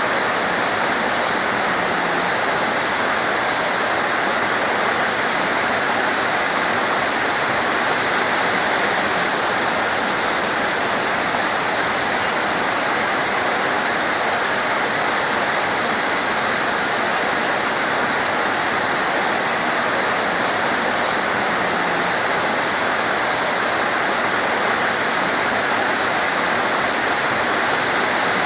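Heavy torrential rain falling steadily, a dense even hiss with no letup, with one short click about two-thirds of the way through.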